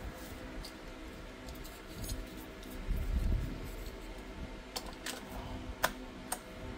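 Light clicks and taps of plastic parts being handled and fitted as a T-fal steam iron's housing is put back together, with a dull thump about three seconds in and a few sharp clicks in the last two seconds.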